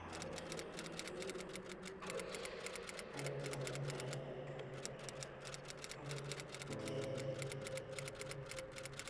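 Rapid, steady clicking of keys being typed on a keyboard, sounding out the text as it appears in a search bar.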